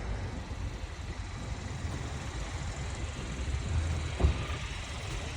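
Steady low rumble of vehicle noise, with a single short knock about four seconds in.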